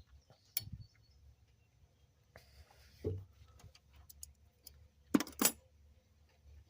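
Scattered light clicks and taps from small parts being handled, with a dull knock about three seconds in and two sharper clicks close together about five seconds in.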